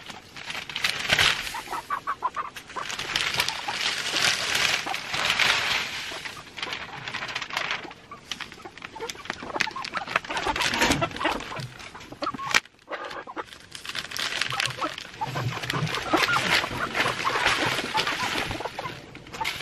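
Hens clucking while a sack of pine wood shavings is emptied onto the coop floor, the shavings and the sack rustling in repeated bouts.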